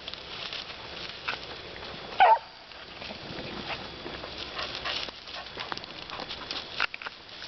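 Petit basset griffon vendéen giving one loud bark about two seconds in. Around it come the rustle and crackle of brambles and dry leaves as the dog pushes through the undergrowth.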